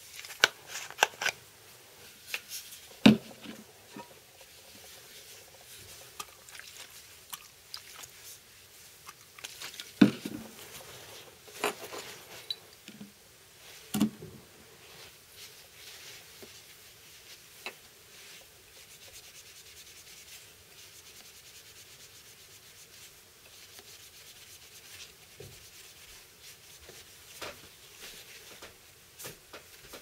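Paper shop towel rubbing and rustling over a steel knife blade, wiping off pink nail polish with nail polish remover. A few sharp knocks on the wooden workbench fall in the first half, the loudest about 3 and 10 seconds in.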